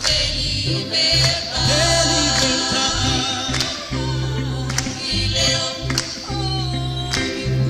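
Spanish-language gospel worship song: singers and a choir holding long sung lines over a band with a steady bass line.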